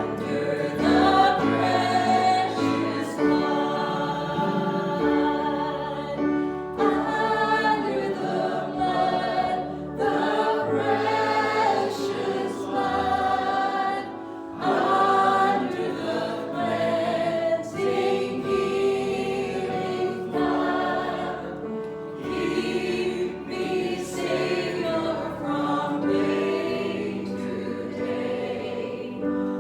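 Several voices singing a gospel song together over instrumental accompaniment with a steady bass line.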